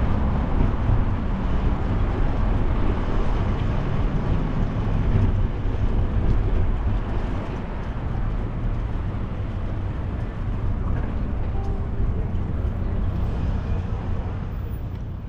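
Wind rushing over the microphone of a bicycle-mounted camera, with rumble from riding, making a steady low noise that becomes a bit quieter about halfway through.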